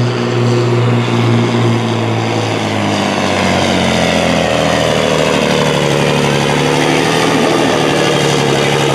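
Volvo FH16 truck's diesel engine running at full power as it drags a weighted pulling sled, black smoke pouring from its stack. The engine note drops about three seconds in as the sled's load builds.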